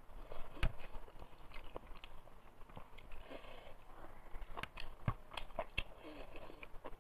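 Close eating sounds: fingers mixing rice on a steel plate, then chewing a mouthful of rice and boti with wet mouth clicks and smacks. The sound is soft, with short sharp clicks scattered through it.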